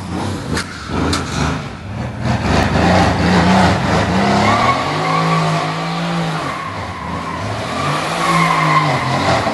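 Mercedes-AMG C63's twin-turbo V8 revving up and down as its rear tyres spin and squeal in a burnout.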